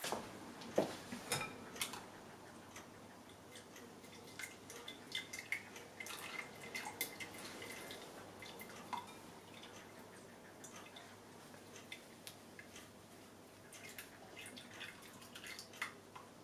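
Cinchona bark infusion poured from a saucepan through a cloth-lined sieve into a glass bowl, with a few knocks of the pan and sieve in the first two seconds. Then faint drips and small ticks as the wet cloth is squeezed over the bowl to strain out the bark solids.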